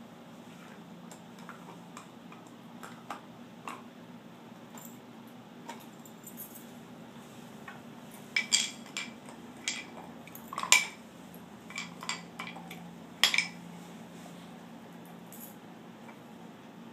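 Two dogs play-wrestling, heard as a scattering of short, sharp clinks and clacks that come thickest a little past halfway, over a low steady hum.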